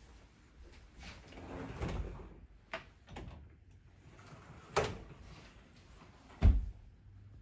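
Sliding wardrobe door rolling along its track, with a couple of sharp clicks, then slid shut and hitting its frame with a loud thump about six and a half seconds in.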